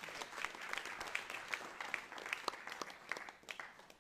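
Audience applauding, many separate hand claps, which thin out and die away near the end.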